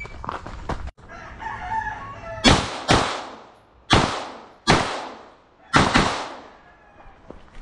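Ferfrans 9mm pistol-caliber carbine firing six shots, starting about two and a half seconds in: a quick pair, two single shots, then another quick pair, each crack ringing out briefly.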